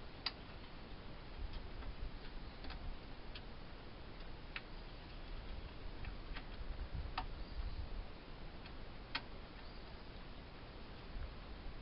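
Sparse, irregular light metallic clicks and taps, a second or more apart, from tools and parts being handled during an engine teardown, over a low steady rumble.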